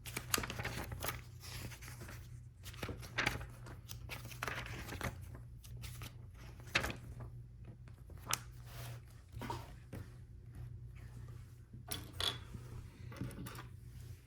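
Plastic Lego Technic pieces being handled and pressed together: scattered clicks and rustling, over a steady low hum.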